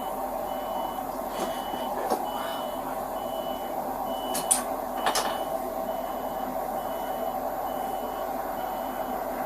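Vehicle warning beeper, a single high tone pulsing on and off a little more than once a second, over a steady engine hum. A few short sharp clicks come in about halfway through.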